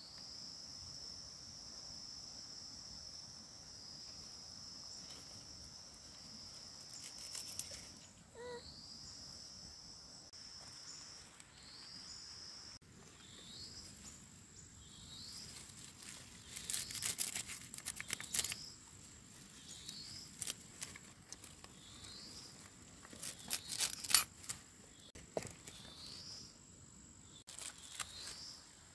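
Insects in undergrowth: a steady high-pitched buzz for about the first eight seconds, then short rising chirps repeating about once a second. Bursts of crackling rustle from chive leaves being pulled up by hand come at intervals in the second half.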